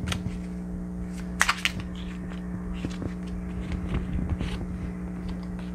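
A deck of playing cards being handled and shuffled by hand: a few soft card clicks, with one short, sharper riffle about a second and a half in, over a steady low hum.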